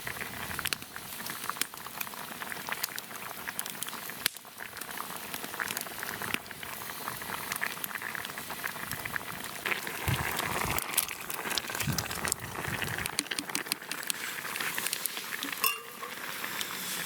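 A pot of pasta simmering over a campfire, bubbling steadily with many small pops and crackles. A few dull knocks come about ten to thirteen seconds in.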